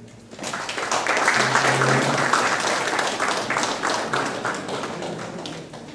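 Audience applauding. The clapping starts about half a second in, is loudest over the next two seconds, then slowly dies away near the end.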